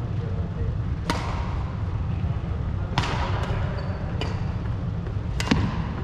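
Badminton rackets striking a shuttlecock in a rally: sharp hits about every one to two seconds, each echoing briefly in a large hall, over a steady low hum.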